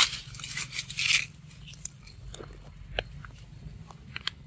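A macaque biting and chewing soft, wet fruit, with a quick run of crunchy bites in the first second or so, then quieter with a few scattered clicks.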